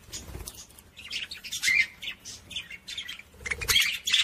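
Budgerigar warbling: quick runs of high chirps, clicks and squawks with short breaks, loudest in the middle and again near the end.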